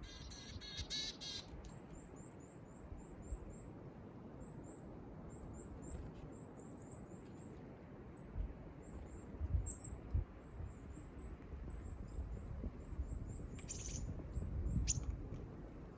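Small wild birds calling: a quick stuttering run of harsh calls at the start, then many thin, very high chirps repeated one after another, with a louder rasping call a couple of seconds before the end and one sharp chirp just after it. A low rumble of outdoor background noise lies underneath.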